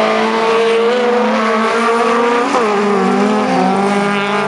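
Several autocross race cars, VW Beetles among them, running hard through a corner with their engines revving. Their engine notes overlap, and one drops in pitch about halfway through as a driver lifts or shifts.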